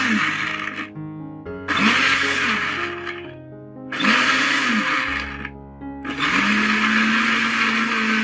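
Electric countertop blender chopping apple pieces in water, pulsed three times in short bursts with the motor spinning up and down each time, then run steadily from about six seconds in.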